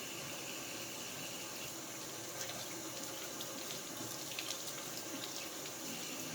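Kitchen tap running steadily into a sink as raw chicken wings are rinsed under it, with small splashes and clatters through the stream.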